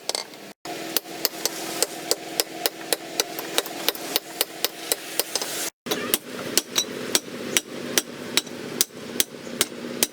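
Hammer striking metal in a quick steady rhythm, about four blows a second, each with a short metallic ring, while an axe blade is forged into shape. The hammering breaks off completely twice, briefly.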